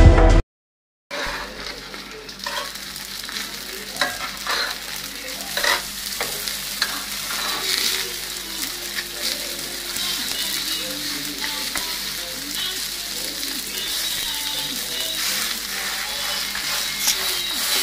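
Hawawshi (meat-stuffed flatbread) sizzling steadily in a double-sided grill pan, with scattered sharp clicks and scrapes of metal tongs against the pan as the loaves are turned.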